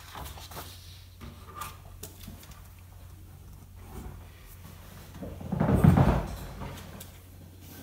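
A sheet of paper being slid across a desk and pressed flat by hand, with faint clicks and one louder rustle about six seconds in.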